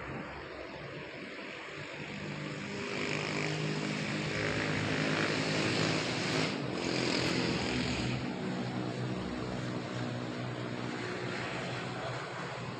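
Radio-controlled model airplane in flight, its motor and propeller humming steadily. It grows louder through the middle, as on a close pass, then eases off.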